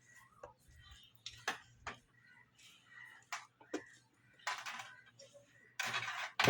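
Scattered small clicks, taps and rustles of hands handling a TV's power board and backlight wiring, over a faint low hum. A louder rustling burst comes near the end, followed by a sharp knock.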